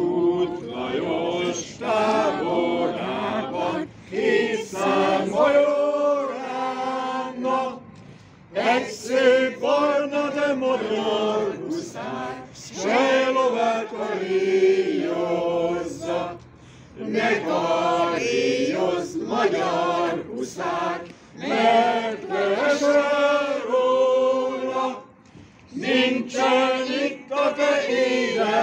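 A group of voices singing a song together without instruments, in phrases of a few seconds with short pauses for breath between them.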